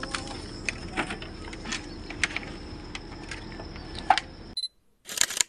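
Footsteps knocking on loose wooden boardwalk planks, over a steady high insect buzz. The sound cuts off suddenly about four and a half seconds in, then a camera shutter click comes near the end.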